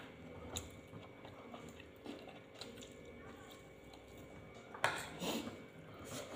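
People eating at a table: soft chewing and biting noises with light clicks of fingers and utensils on plates and bowls, and one louder sharp sound with a short noisy tail about five seconds in.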